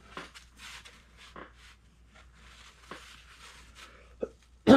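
Hands working long-pile faux fur over a sculpted head: soft, scattered rustling strokes as the fur is pulled and smoothed. A sudden loud burst comes near the end.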